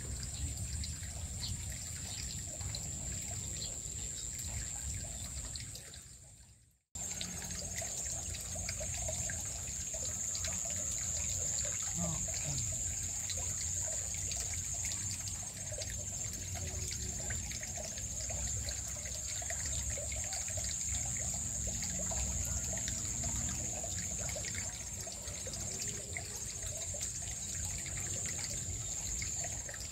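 Shallow stream trickling over rocks, with a steady high-pitched whine over it. The sound fades and drops out for a moment about seven seconds in, then comes back.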